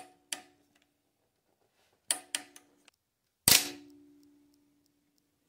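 Torque wrench on the 2.4 Ecotec's cam sprocket bolts giving a few sharp metallic clicks. The loudest comes about three and a half seconds in and rings on for about a second, the wrench reaching its set torque of 63 ft-lb.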